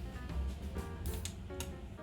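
Background music: a melody of short plucked or picked notes over a steady bass.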